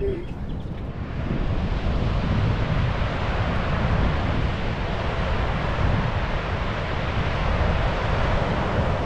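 Ocean surf breaking on a sandy beach, a steady rushing wash, with wind rumbling on the microphone. It swells up about a second in and then holds steady.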